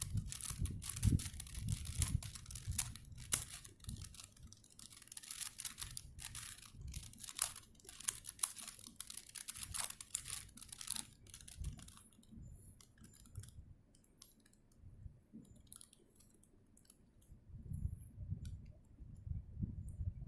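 4x4 Rubik's Cube's plastic layers clicking as they are turned by hand, in quick runs of turns for about the first twelve seconds, then slower, sparser turns with a few dull handling knocks near the end.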